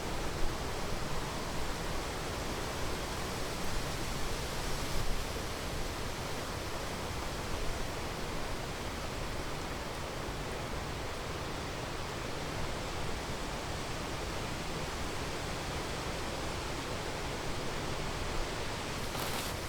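Strong wind rushing steadily in a windstorm, an even hiss with no pauses.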